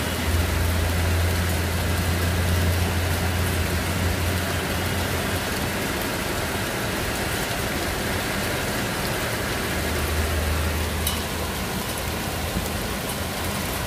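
Heavy rain mixed with hail pelting the street and road surface, a dense steady hiss. A car's low engine drone passes through it in the first few seconds and again about ten seconds in.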